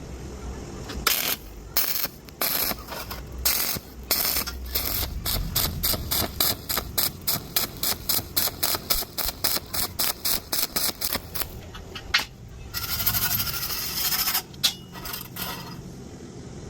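Quick repeated scraping strokes, about three or four a second, with a longer scrape about two thirds of the way in.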